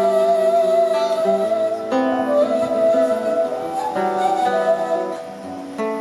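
Music: plucked guitar-like notes changing about once a second over a long held, slightly wavering high tone.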